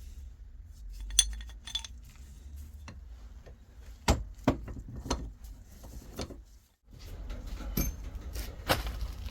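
Metal gearbox parts and hand tools clinking and knocking together, a series of sharp separate metallic clinks with a louder knock about a second in and another about four seconds in.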